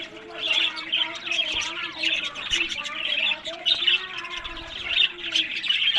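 Budgerigars chattering and warbling: a dense, unbroken run of quick chirps and short warbled notes.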